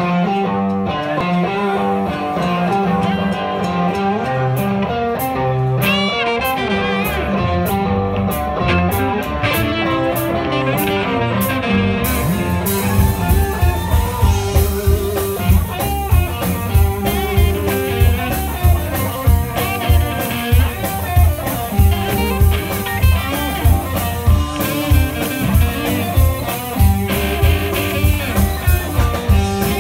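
Live band playing an instrumental passage with two electric guitars and a drum kit. The first twelve seconds or so are lighter, with guitar lines over sparse cymbal taps, then the full drum kit comes in with a steady beat.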